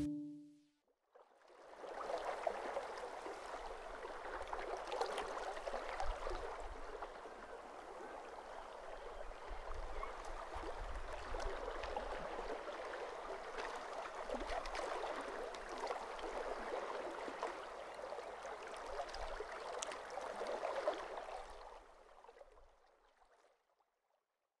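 Water lapping and washing softly against rocks at a shoreline, a steady gentle wash with a low rumble underneath. It starts about two seconds in and stops a few seconds before the end.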